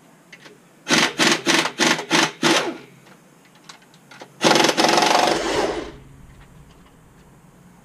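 Power impact wrench hammering in six quick bursts, then one longer run of about a second and a half, loosening bolts on the bottom end of a 6.4 Hemi short block during rod and piston removal.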